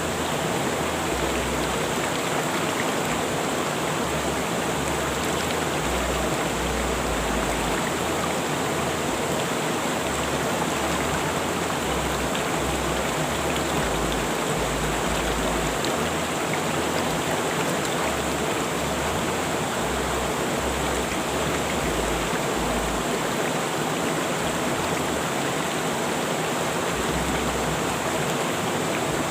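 Rushing river water flowing steadily, a constant full rush of white-noise-like sound with no breaks.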